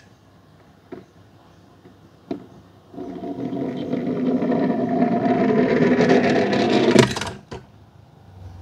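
Small die-cast toy jeep rolling down the slope of a plastic tub, its wheels making a rumbling whir that grows louder as it speeds up. It cuts off about seven seconds in with a sharp splash as the car drops into the water. Two light clicks of the toy being set down come before it.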